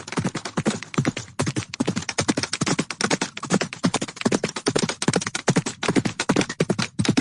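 Horse hooves galloping: a rapid, unbroken run of hoofbeats.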